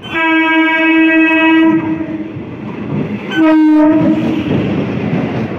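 Electric multiple-unit local train sounding its horn twice as it runs past: a long blast of about two seconds, then a shorter one, over the rumble of the coaches rolling by on the rails.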